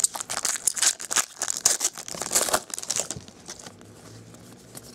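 Foil wrapper of a 2012 Bowman baseball card pack crinkling and tearing as it is opened. It crackles hard for about three seconds, then goes quiet.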